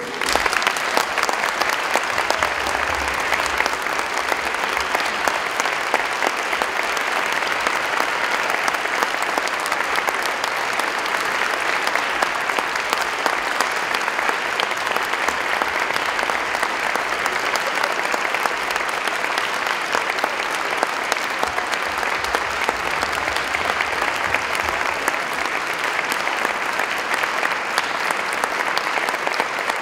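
Audience applauding: dense, steady clapping that breaks out all at once and keeps up at an even level.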